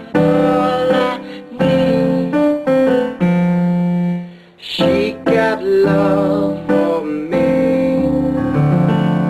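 R&B song music: sustained electric-piano chords that change every second or so, with a brief drop in level about four and a half seconds in.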